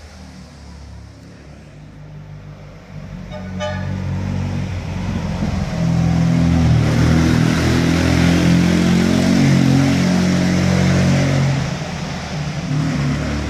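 1972 Fiat 500 L's air-cooled two-cylinder engine through an Alquati sport exhaust, driving past inside a parking garage: faint at first, it grows loud from about three seconds in as the car approaches and passes, then falls away near the end as it drives off. A brief high toot sounds about three and a half seconds in.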